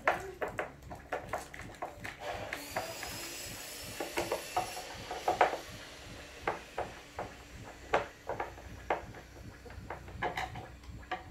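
Hand screwdrivers turning screws in the wooden top panel of a subwoofer cabinet, with irregular clicks and knocks of the tools and hands against the wood.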